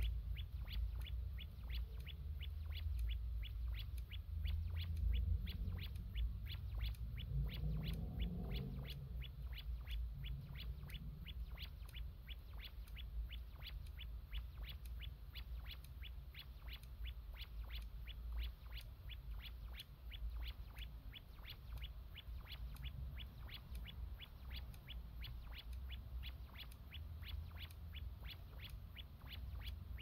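Rapid, evenly spaced high-pitched ticking, about two to three clicks a second, over a low hum: the audible pulsing of an ultrasonic pest repeller running.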